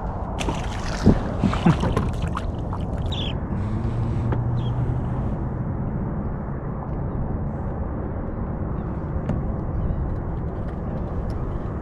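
A released speckled trout splashes back into the water within the first second or two. After that comes a steady low rumble of wind and water around the kayak.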